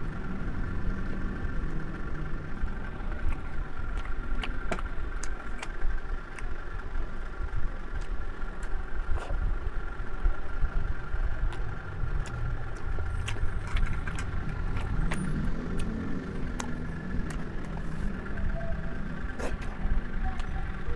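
A steady low rumble with a faint steady hum behind it, overlaid with scattered light clicks and taps from eating: a spoon on a bowl, handling of food.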